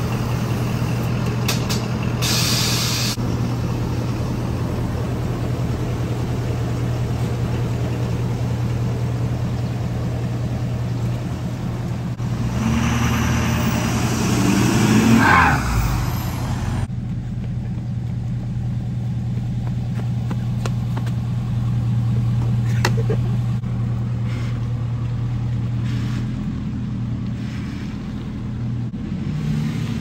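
Ford F-450's 6.7-litre Power Stroke V8 diesel running with a steady low drone. There is a short hiss about two seconds in, and about halfway through the engine sound swells, rising and then falling.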